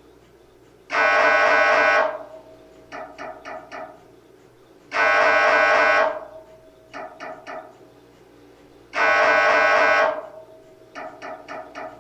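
MRI scanner gradient coils running a scan sequence: a loud buzzing tone about a second long every four seconds, three times. Each buzz is preceded by a quick group of three or four shorter, quieter pulses.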